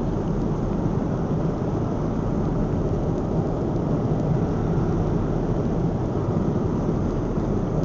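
Airliner cabin noise in flight: the steady, deep drone of the jet engines and airflow, unchanging throughout.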